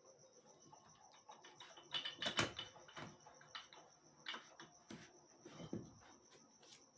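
Scattered light clicks and metallic knocks from tools and transmission parts being handled, loudest in a quick cluster about two seconds in.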